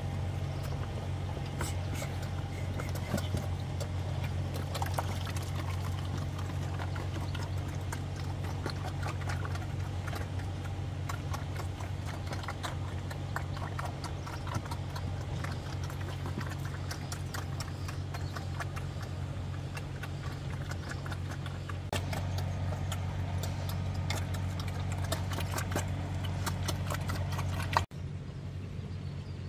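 A steady low motor hum with many irregular clicks and knocks over it, cutting off abruptly near the end into a quieter hum.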